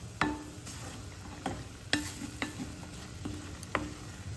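A spatula stirring and scraping egg bhurji around a stainless steel pan, with about half a dozen sharp clicks of the spatula against the metal over a faint sizzle of the eggs frying.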